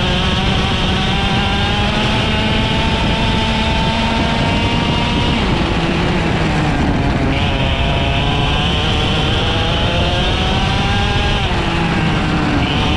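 IAME X30 125cc two-stroke kart engine racing on track. It climbs steadily through the revs, drops off for a corner about five and a half seconds in, pulls up again, and drops once more near the end before climbing again.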